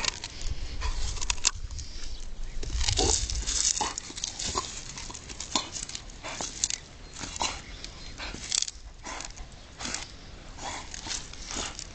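American Pit Bull Terrier biting and gnawing a wooden stick held in a person's hand, the wood cracking and crunching in repeated short snaps as the dog splinters it, with a few short whines from the dog.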